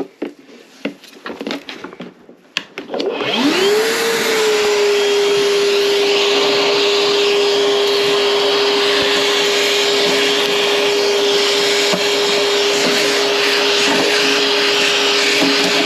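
A few handling knocks, then about three seconds in a vacuum cleaner is switched on: its motor whines quickly up to speed and then runs steadily with a loud rush of air.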